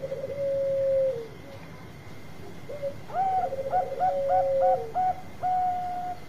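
Zebra dove cooing: a rapid rolling coo that ends in a long held note falling away at the end, given twice. Over the second one, a second, higher-pitched dove calls a string of short coos and then one long note.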